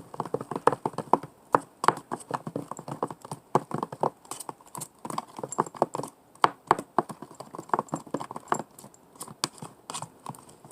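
Slime mix of glue and shaving cream being stirred in a bowl: a rapid, irregular run of clicks and taps.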